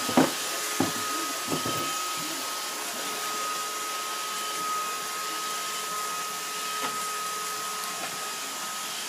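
Roomba robot vacuum running with a steady whirring hiss and a thin, steady high whine, with a few short knocks in the first two seconds.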